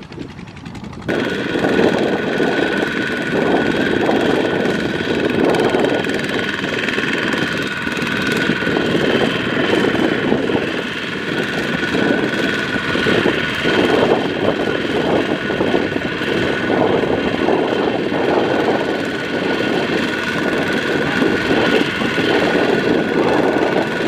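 Two-wheel walking tractor's single-cylinder diesel engine running steadily under heavy load, pulling a trailer of rice sacks that is stuck in soft paddy ground. The sound steps up abruptly about a second in, then holds.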